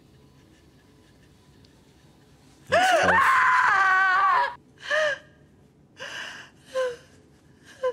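A woman lets out a long anguished scream about three seconds in, lasting nearly two seconds, then four short sobbing cries, in grief at finding she has lost her baby.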